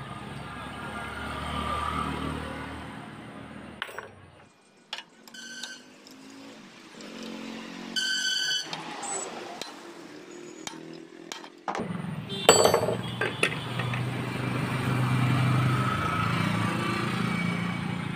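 Hand tools clinking and ringing against the steel timing gears and cam lock of a dismantled single-cylinder diesel engine: scattered metal clinks, with one ringing strike about eight seconds in. Another engine runs steadily in the background, dropping away between about four and twelve seconds in.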